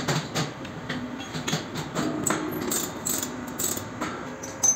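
Irregular metal clicks and clanks from setting up a lathe: a cast-iron brake disc handled in the chuck and the tool post's clamping handle being swung, with one sharp clank near the end.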